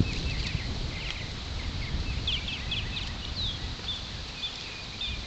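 Wild birds chirping in many short, quick notes, over a low rumble of wind buffeting the microphone.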